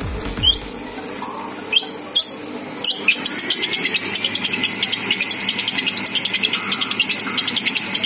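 Kitchen machine stirring cottage cheese in its heated metal bowl as the cheese melts. Its motor hums steadily under a few short chirps, then from about three seconds in comes a fast, even clicking, about eight a second.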